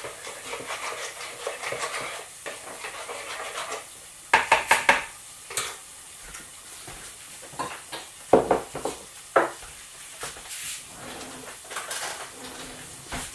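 A spoon stirring batter in a plastic bowl, then dishes and utensils clattering sharply a few times, over a steady sizzle of potato slices frying in an electric deep fryer.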